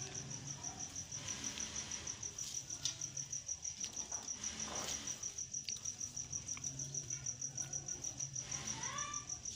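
Insect chirping in a steady high pulse, about eight pulses a second. Under it is faint rustling as chopped spinach is tipped from a plastic colander into a bowl and spread by hand.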